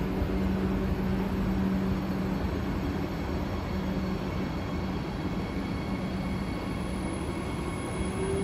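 SBB double-deck passenger coaches rolling slowly past: a steady low hum over the rumble of wheels and carriages, with a faint tone that starts to rise near the end.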